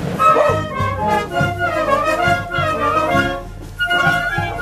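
A children's and youth brass band (Oaxacan banda de viento) playing a tune, trumpets and trombones carrying the melody over regular drum beats.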